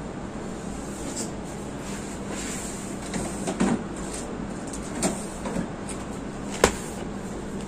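A few soft knocks and clicks of objects being handled, the sharpest just before the end, over a steady background hum.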